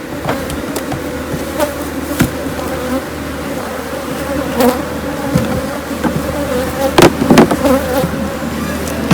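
Honey bees buzzing steadily around opened hive boxes, with a few sharp knocks, the loudest a pair about seven seconds in.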